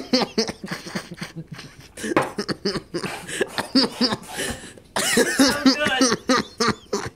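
A young man coughing and sputtering in rapid, repeated fits, with a longer stretch of pitched vocal sounds about five seconds in. He is reacting to a condiment he has just tasted and could not handle.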